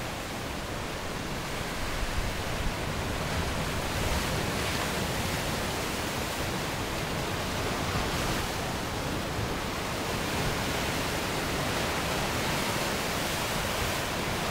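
Steady rushing noise of ocean surf with wind on the microphone, swelling gently a few times.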